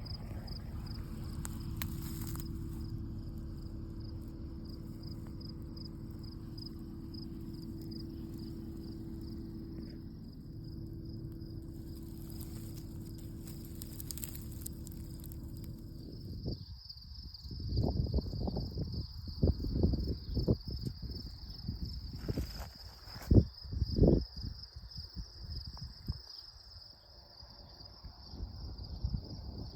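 Insects trilling steadily in a high, pulsing chorus. A faint low hum and a steady tone run under it for the first half, and irregular low rumbling bumps come in about halfway through.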